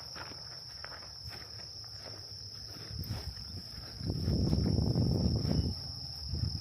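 Steady, high-pitched chorus of crickets or similar insects. About four seconds in, a loud low rumbling noise on the microphone lasts nearly two seconds.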